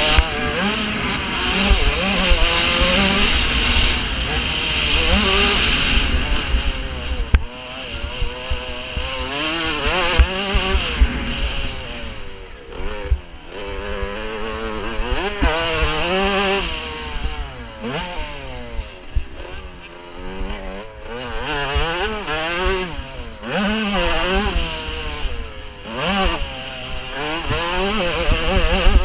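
Motocross bike engine heard from the onboard camera, revving up and dropping back again and again as the rider accelerates, shifts and rolls off around the dirt track, over a low rough rumble.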